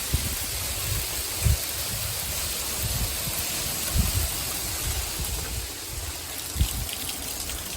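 Hail falling steadily: a dense, even hiss of hailstones hitting the ground and plants. A few short low thumps come through, about one and a half, four and six and a half seconds in.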